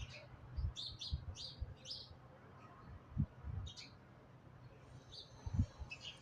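A small bird chirping: a quick run of four short high chirps about a second in, then single chirps near four seconds and near the end, over intermittent low thumps and rumble.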